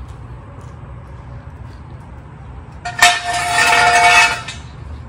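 A loud metallic scrape with ringing tones, starting about three seconds in and lasting about a second and a half, over a steady low rumble.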